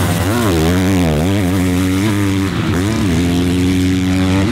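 Motocross bike engine revving on track, its pitch rising and falling repeatedly with the throttle, then held at a steady pitch for the last second or so.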